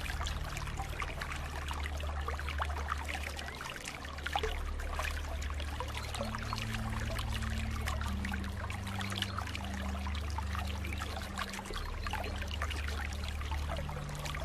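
Water flowing and trickling steadily, with constant small splashes and gurgles. A low hum runs underneath, shifting in pitch now and then.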